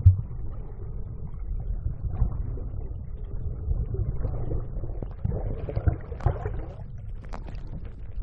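Muffled underwater noise picked up by a phone filming below the surface: a steady low rumble of water against the housing, with a few scattered knocks and taps.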